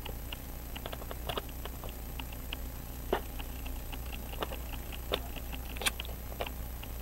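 Light, irregular metal clicks and taps of a fine watchmaker's screwdriver working at the plate of a Hamilton 916 pocket watch movement, a few of them sharper, while the plate is eased back onto the wheel pivots.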